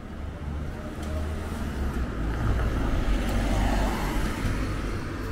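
A passenger van driving past close by, its engine and tyre noise swelling to its loudest about three to four seconds in, then easing off.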